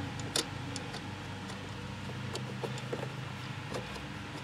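Faint clicks and ticks of fingers turning the threaded adjusting nut on the emergency brake cable at the top of the pedal, taking up the slack in the cable. A lawn mower's steady hum runs underneath.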